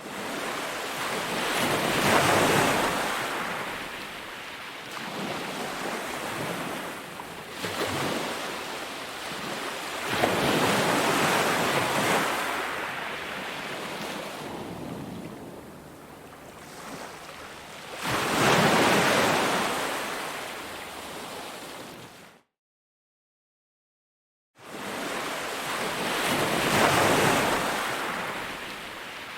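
Ocean waves breaking and washing up the shore in slow, repeated swells, one every eight seconds or so. The sound cuts out completely for about two seconds about three quarters of the way through, then the waves resume.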